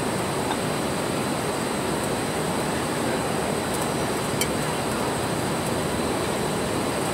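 River water rushing steadily, an even unbroken noise.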